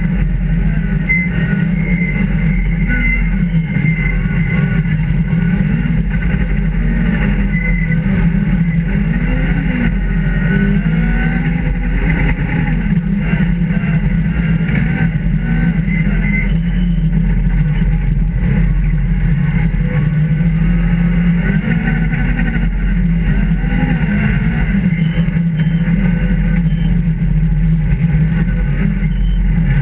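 Rally car engine working hard, heard from inside the cabin, its pitch rising and falling again and again with throttle and gear changes.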